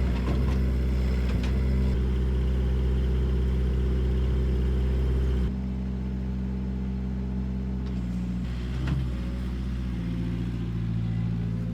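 Excavator's diesel engine running at a steady pitch. About five and a half seconds in it drops a little in level and its pitch shifts slightly, then runs on steadily.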